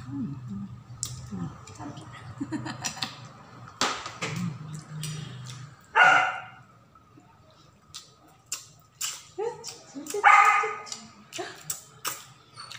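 A dog barks twice, a single short bark about halfway through and another near the end, over small clicks and rustles of eating and low murmuring voices.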